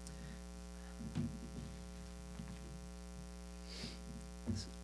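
Steady electrical mains hum through the church sound system, with a few faint rustles and soft knocks.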